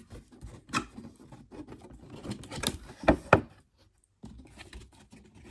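A cardboard box being handled for unboxing: scattered rustles, taps and clicks, with two louder knocks close together about three seconds in.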